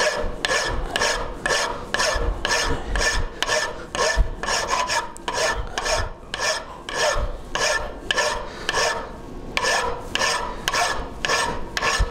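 Flat hand file rasping back and forth across a metal sector-gear tooth clamped in a vise, in even strokes at about two a second, as the tooth is filed and rounded to match the original part.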